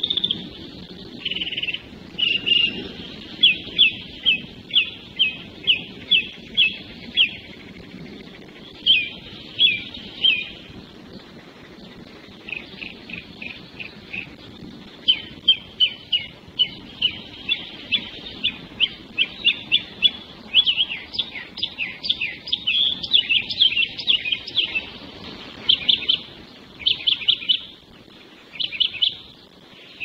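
Wild songbirds singing: phrases of quick, repeated down-slurred notes, several in a row, broken by short pauses, over a faint low background rumble.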